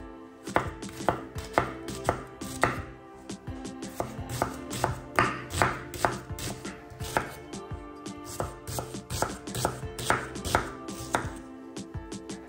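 Kitchen knife chopping a peeled onion on a wooden cutting board: crisp knocks of the blade through the onion onto the wood, about two a second at an uneven pace.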